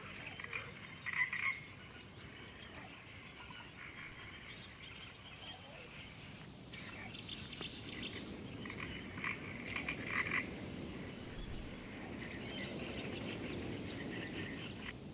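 Frogs croaking: short rattling trains of croaks, loudest about a second in and again around nine to ten seconds, over a steady high hiss.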